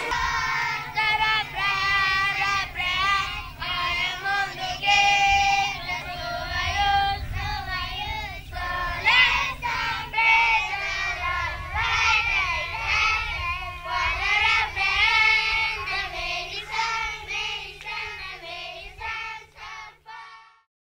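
A group of young children singing a song together. A steady electrical hum runs under the singing for the first half and stops at a cut about ten seconds in; the singing fades out near the end.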